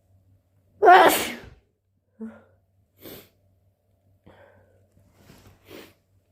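A person's loud wet sneeze about a second in, followed by a few short, much quieter breathy sounds.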